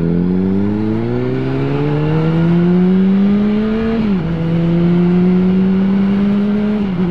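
Sport motorcycle engine accelerating away from a stop: the pitch climbs steadily through a gear for about four seconds, drops sharply at the upshift, then holds nearly steady at cruising speed with a brief dip near the end. Wind rushes over the helmet microphone throughout.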